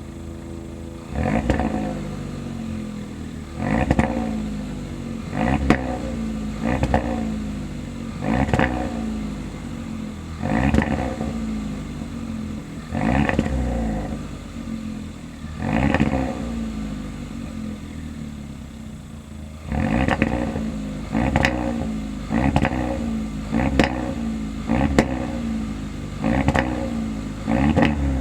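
Stock exhaust of a cold 2020 Hyundai Elantra GT N-Line's 1.6-litre turbo four-cylinder, idling between about fifteen quick throttle blips. Each rev rises and falls back, with crackles and pops from the exhaust as the revs drop, which happens on the overrun below about 2,000 rpm and more when the engine is cold.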